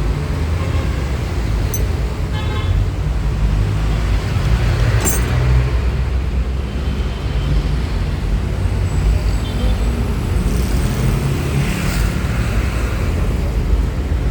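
Steady low rumble of road traffic, with a few short light clicks and clinks.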